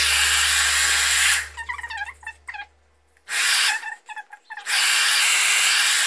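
Clairol hand-held hair dryer blowing with a steady rush of air. The rush breaks off twice in the middle, and in those gaps a brief wavering high-pitched sound is heard before the dryer noise comes back.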